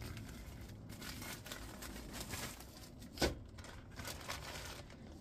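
Plastic packaging crinkling and rustling as it is pulled off and handled while unwrapping a step drill bit, with one sharp click about three seconds in.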